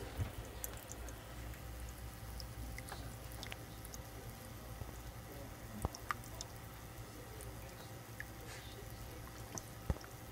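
Reptile-enclosure fogger in a water dish running with a steady low hum, with scattered small drip-like clicks and a few sharper clicks about six and ten seconds in.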